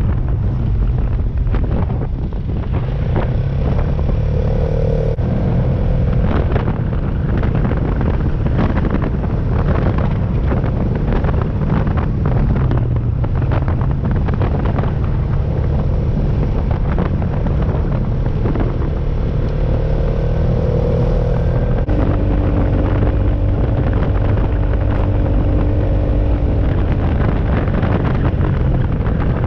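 Four-wheeler (ATV) engine running steadily under way, with wind noise on the microphone; the engine pitch shifts slightly a couple of times.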